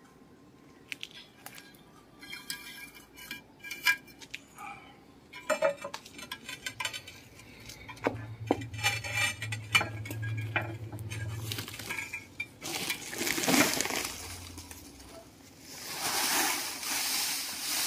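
Tie wire clinking and scraping against a glazed ceramic bonsai pot as it is threaded through the drainage holes: many short, sharp clicks. In the last part, soil rushes from a tipped sack into the pot, twice.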